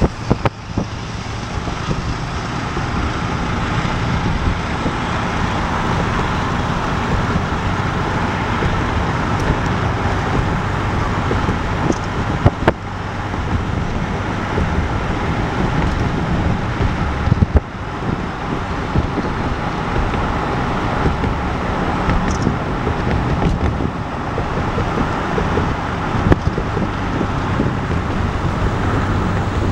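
Steady road noise of a car driving along: tyre and engine hum with a low drone, broken by a few brief clicks.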